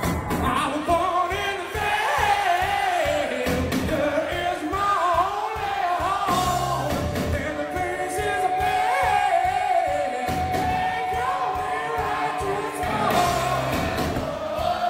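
Hard rock band playing live with sung vocals, including one long held note in the middle, heard from among the audience in a large hall.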